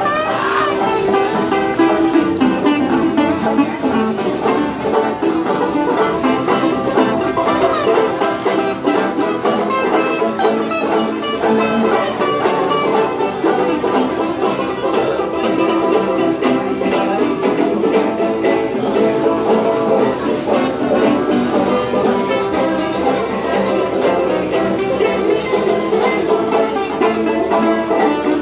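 Acoustic string band of banjos and acoustic guitars playing a bluegrass-style tune, picked and strummed at a steady loudness.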